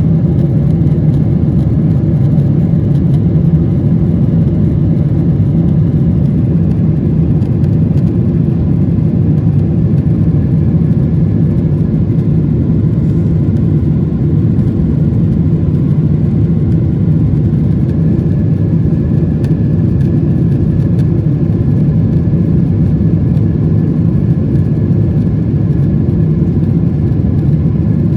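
Airliner in flight: a loud, steady drone of engines and rushing air that does not change.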